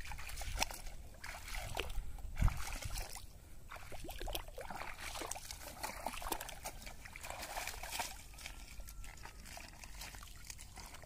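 Shallow muddy pond water splashing and sloshing as a barefoot person wades through it and then gropes with both hands in the mud among water hyacinth, feeling for fish. Irregular splashes, with one heavier low thump about two seconds in.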